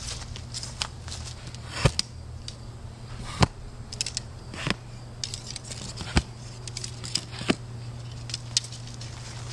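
Irregular sharp knocks and clicks, four of them much louder than the rest, about a second or two apart, over a low steady hum.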